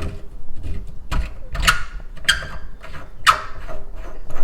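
Adjustable wrench working a faucet's cartridge-retaining cap loose: about four sharp metal scrapes, each short and fading, spaced roughly half a second to a second apart.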